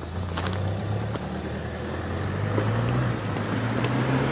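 A car engine running as the car pulls away and drives up toward the camera. Its pitch climbs as it accelerates, drops once about three seconds in, then climbs again, and it grows steadily louder.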